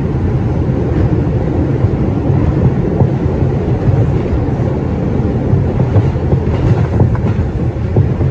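R142 subway car running at speed through a tunnel: a steady, loud rumble of wheels on rail, with a few faint clicks.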